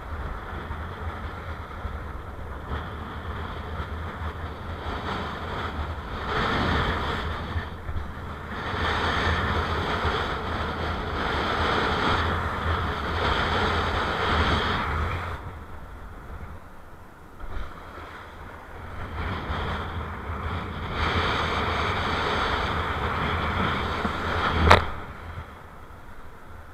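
Strong wind of about 27 knots buffeting an action camera's microphone, mixed with water rushing under a kiteboard in the surf, swelling and easing in long surges. A sharp knock near the end.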